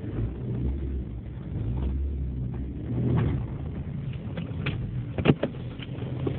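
BMW M3 E46's straight-six engine running at low load, heard as a steady low drone inside the cabin. A few sharp clicks come near the end, with one louder knock.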